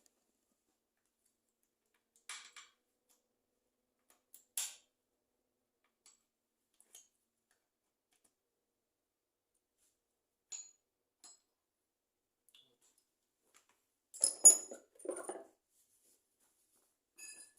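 Scattered light metallic clicks and taps from automatic transmission parts and tools being handled, with a louder clatter of metal on metal about fourteen to fifteen seconds in.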